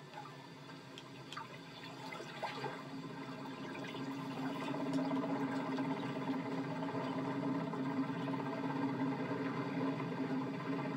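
Rushing, pouring water sound from an animated film's soundtrack, played through a television's speakers; it swells over the first five seconds and then runs steadily.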